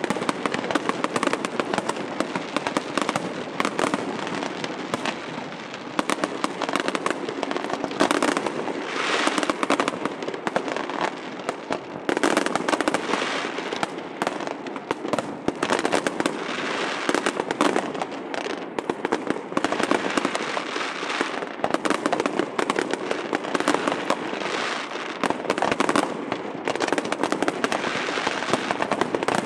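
Fireworks display: a dense, continuous barrage of aerial shell bursts and crackling, with sharp reports following one another without pause.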